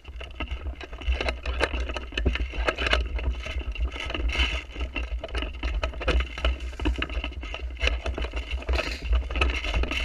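Handling noise on a rifle-mounted action camera as the player moves: many irregular clicks, knocks and rattles of the gun and gear over a steady low rumble.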